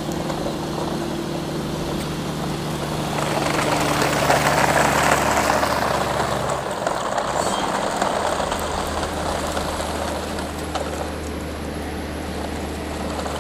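A motor engine running steadily with a low hum. Its tone drops out and changes about six and a half seconds in, then settles again. A louder rushing noise rises over it from about three seconds in and fades by about eight.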